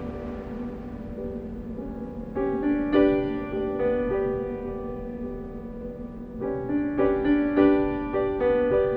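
Background piano music: slow chords struck in groups, each left to ring, over a low rumble.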